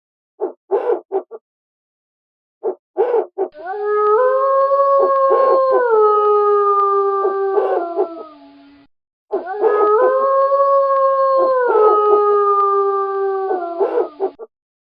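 Wolves howling in chorus: short yips first, then two long howls of several overlapping voices. Each howl holds steady, then drops in pitch partway through, with brief yips cutting through it.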